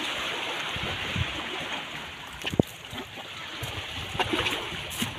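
Small sea waves washing and splashing against shore rocks, with one short knock about two and a half seconds in.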